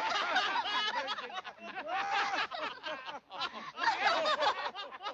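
Anime characters laughing, quick chuckling runs of laughter with a brief break a little past the middle.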